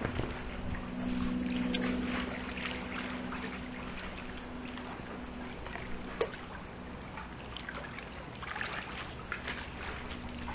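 Small splashes and lapping water as hands paddle an inflatable air mattress across a swimming pool, over a steady low hum, with a single sharp tap about six seconds in.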